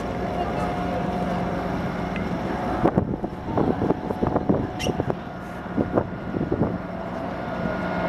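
Steady low mechanical hum, with a run of irregular knocks and crackles from about three seconds in to about seven seconds in.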